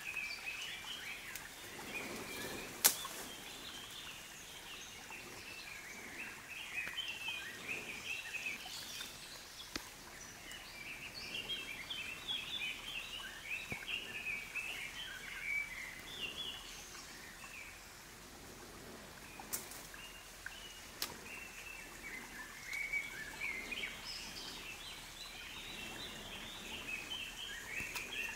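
Songbirds singing a continuous chorus of high, chirping phrases, with a loud sharp click about three seconds in and a couple of fainter clicks later.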